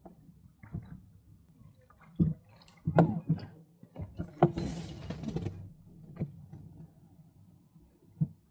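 Water lapping and dripping against the hull of a small 1965 Sunfish sailboat as it tacks, with several sharp knocks and clunks from the boat and rigging, loudest about three seconds in. A brief rushing hiss follows about four and a half seconds in.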